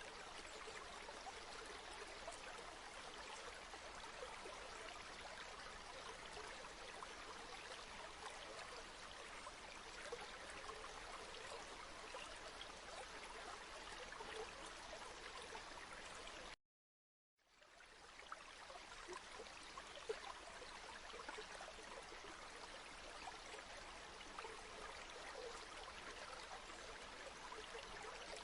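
River water flowing, a faint, steady rush of water. It cuts out completely for about a second just past the middle, then fades back in.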